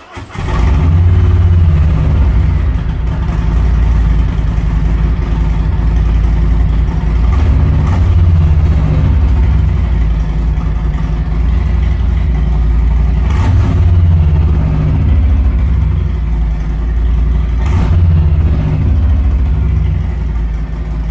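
Harley-Davidson Milwaukee-Eight 107 V-twin of a 2020 Road Glide running loud through baffled SharkRoad 4-inch slip-on mufflers, freshly started and idling, with a few throttle blips along the way.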